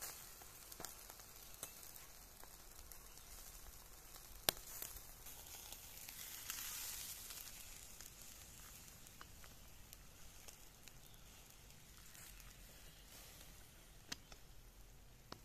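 Skewered quail grilling over glowing charcoal: a faint, steady sizzle with scattered sharp crackles. The loudest pop comes about four and a half seconds in, and the sizzle swells briefly around the middle.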